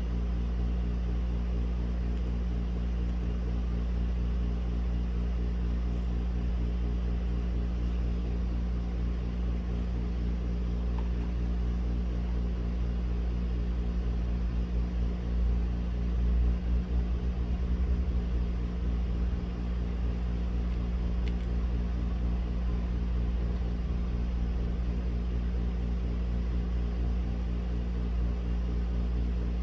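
Steady low mechanical hum with a deep background rumble and a few faint clicks. About halfway through, a low rumble swells and fades over several seconds: a vehicle passing outside.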